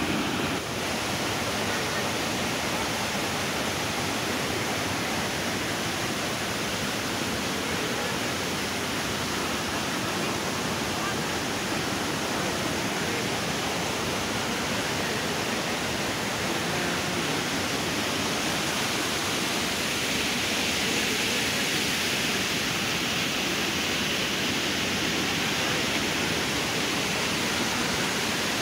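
Steady rushing of muddy storm runoff, flowing water after a heavy downpour.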